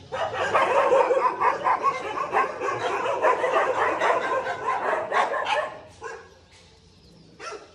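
Several stray dogs barking together in a dense, continuous frenzy, which dies down about six seconds in, with one more short burst near the end. They are barking at something that has gone under a car, taken to be a cat.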